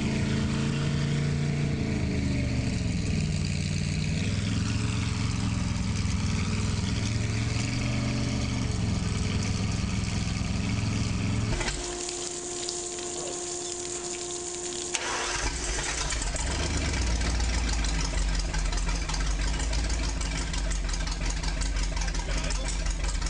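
Ford 351 cubic-inch marine V8 running on a test stand, its speed dipping and rising a few times. About twelve seconds in the engine sound stops abruptly, leaving a quieter steady hum; about fifteen seconds in the engine starts and runs on with a deep, steady idle.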